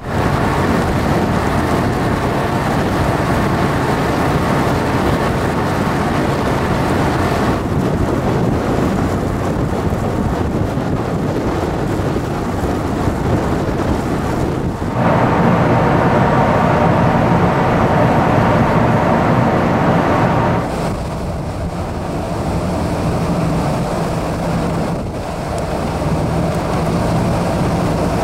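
Car ferry MARY ELLEN under way: a steady drone from its diesel engines, mixed with wind on the microphone and rushing water. The mix shifts abruptly in level a few times.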